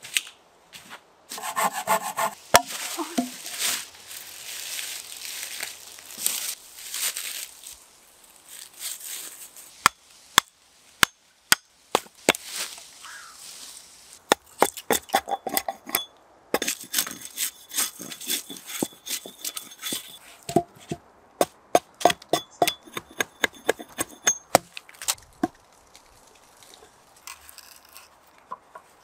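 Rustling of dry fallen leaves underfoot, then a long run of sharp knocks as a hatchet chops into and splits a dry log, some strikes ringing briefly.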